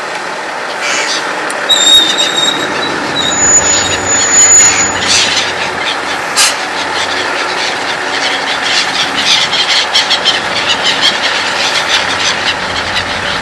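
Freight train passing, with steady rolling noise and rapid clicks of wheels over the rail joints.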